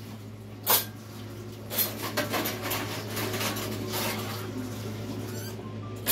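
Dishes and utensils clinking and knocking together in a kitchen sink as they are washed by hand, with some squeaky rubbing. Sharp knocks come about a second in and again at the very end, over a steady low hum.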